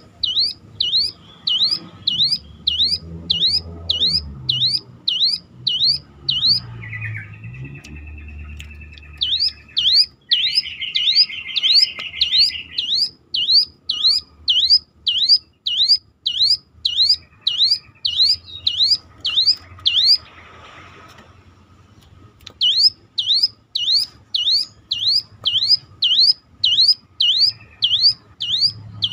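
Ciblek gunung (hill prinia) singing a long run of quick, high rising-and-falling whistled notes, about one and a half a second, with a siren-like ring. A lower buzzing trill breaks in twice in the first half, and the whistling stops for about two seconds past the middle before starting again.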